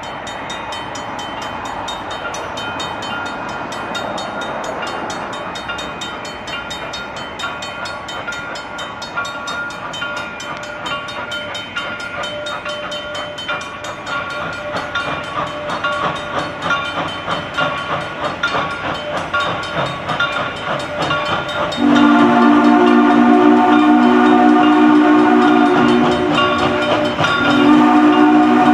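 Double-headed steam locomotives, Reading & Northern 425 and CNJ 113, approaching with a fast, even beat of exhaust chuffs that grows louder. About two-thirds of the way in, a loud multi-note chime steam whistle blows for several seconds, pauses briefly, then sounds again near the end.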